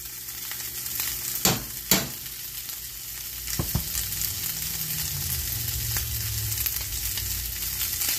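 Hominy and sour cream sizzling with a steady hiss in a hot cast-iron skillet as a wooden spoon stirs them. A few sharp clicks of the spoons knocking, two close together about one and a half to two seconds in and one more near four seconds.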